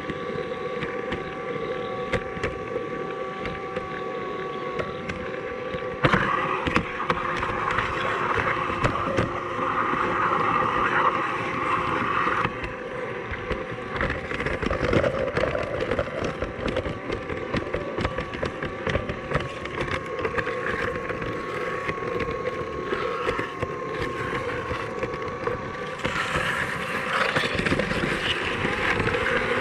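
Scratch-built G scale model tram running along garden railway track, heard from on board: its small motor and gears whine steadily over a fast clicking and rattling of wheels on the rails. The running gets louder about six seconds in, eases again a few seconds later, and turns louder and hissier near the end.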